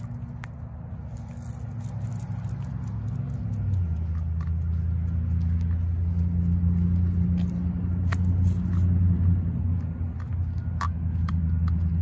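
A low, steady engine rumble that swells over several seconds and peaks past the middle, with a few short, sharp clicks over it.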